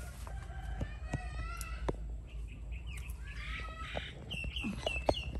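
High-pitched animal calls: chirps and whistles, ending in a run of about four short falling chirps.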